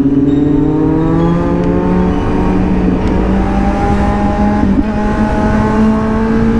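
An engine pulling under steady acceleration, its pitch rising slowly and evenly, over heavy wind and road rumble.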